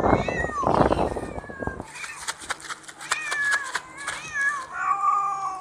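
Wild cats meowing and caterwauling as they squabble over food, with many short clicks in the middle and a long drawn-out yowl near the end. A noisy rustling fills the first two seconds.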